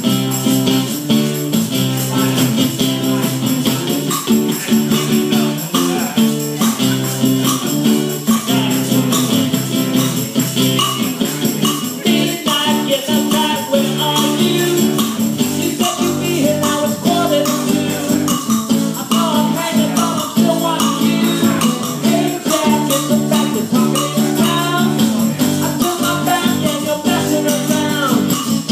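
Live acoustic guitar strummed in steady chords, with two pairs of maracas shaken along in rhythm and a man singing over it through much of the second half.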